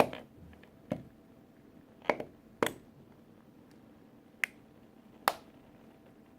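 A plastic toy tractor cracking under stomping work boots: six sharp, irregular snaps over several seconds, the loudest at the very start.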